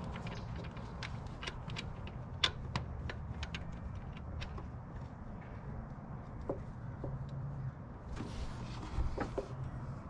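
Hand tools and metal pulley hardware being handled during an idler-pulley swap: irregular light clicks and clinks, the sharpest about two and a half seconds in, over a low steady hum, with a short rustle and a few more clicks near the end.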